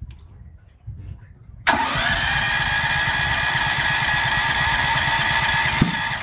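Generator engine being cranked by its electric starter, set off remotely by a V6 AutoGen starter. It is a loud steady whine with a fast pulsing beat that starts suddenly about two seconds in and runs for about four seconds, then stops without the engine catching, which the owner puts down to the engine being cold.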